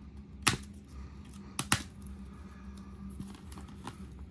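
Scissors snipping, three sharp snips: one about half a second in and two in quick succession near the middle, with light rustle of packaging in between.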